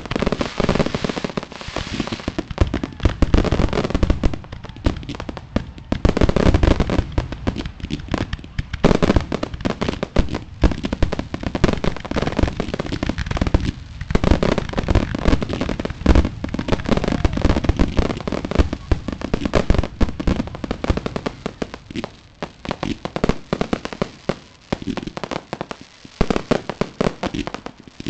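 Fireworks grand finale: a dense, rapid barrage of shell bursts and crackling bangs, one on top of another, with brief lulls.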